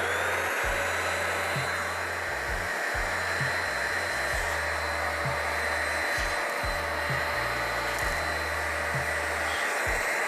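Vacuum cleaner running steadily, a rush of air with a high whine over it, as it sucks loose coffee grounds out of the burr chamber of a Breville Barista Express grinder.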